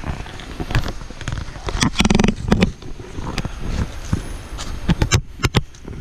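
Footsteps crunching and scuffing through dry leaf litter on a steep climb: an uneven run of crackles and knocks. A brief voice sounds about two seconds in.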